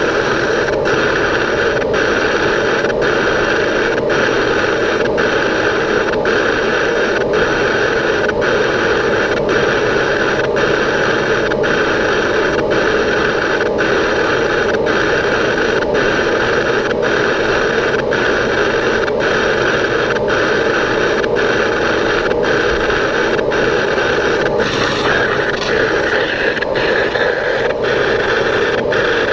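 Boring machine cutting the inner bore of a vacuum compressor's housing: a steady machining noise with a short regular break about every 0.7 seconds, once per turn of the cut.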